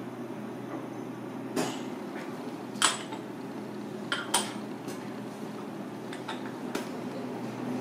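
Porcelain clinking as lids are set on small lidded porcelain cups on their saucers: about five short, bright clinks, the loudest about three seconds in. A steady low hum runs underneath.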